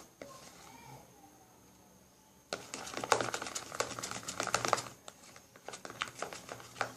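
White glue and shaving foam being stirred into slime in a pot, making sticky crackling clicks. Quiet for the first two and a half seconds, then a dense run of clicks for a couple of seconds, then sparser ones.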